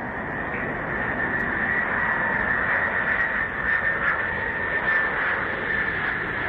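Jet engines of a Boeing 747 landing and rolling out on the runway: a steady rushing roar with a high whine over it, swelling a little in the first second.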